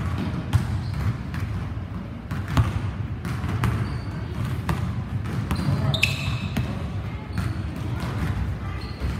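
Basketballs bouncing on a hardwood gym floor, an irregular run of thuds with a hall echo, over a steady low hum. A brief high squeak comes about six seconds in.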